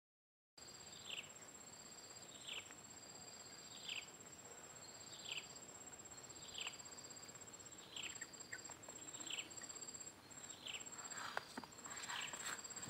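Faint insect trilling on one steady, very high note. Over it, a short high call that drops in pitch repeats about every second and a half. A few soft rustles and clicks come near the end.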